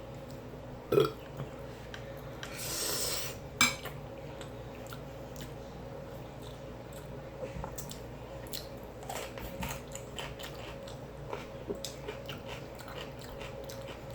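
A person eating a chicken, rice and bean bowl close to the microphone: chewing, with utensil clicks against the dish scattered throughout. A sharp click about a second in, a short burst of noise around three seconds, and another sharp click just after are the loudest moments.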